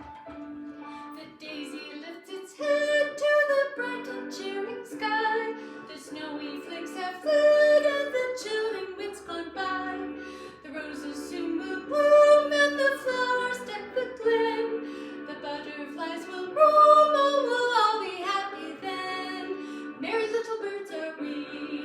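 A woman singing a melody with held and gliding notes over steady instrumental accompaniment.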